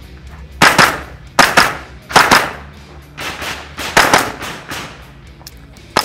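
Semi-automatic .22 rifle fired in quick strings during an IPSC Mini Rifle stage: five tight groups of several shots each, a fraction of a second apart, then a single sharp shot at the very end.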